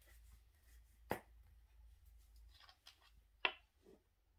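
Small plastic diamond-storage bottles being handled: light clicks and knocks as they are lifted out of the storage case and set down on the table. There are two sharper clicks, about a second in and about three and a half seconds in, the second the louder.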